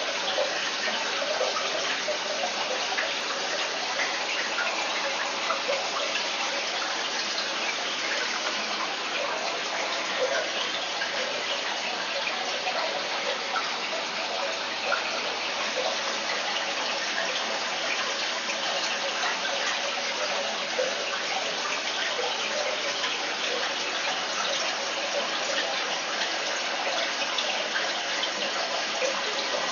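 Aquarium water running and splashing steadily: a continuous rush with a fine crackle of moving water.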